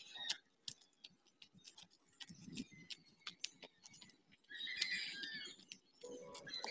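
Footsteps crunching and rustling on a dry, leaf-littered dirt path, a scatter of sharp clicks. Short high chirps sound near the start, about four and a half seconds in, and again near the end.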